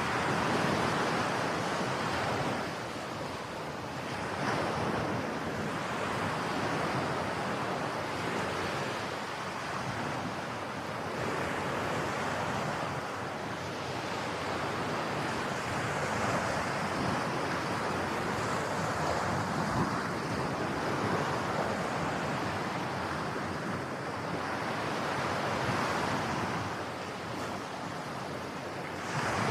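Ocean waves breaking and washing on a beach, the surf swelling and easing every few seconds. Some wind noise on the microphone.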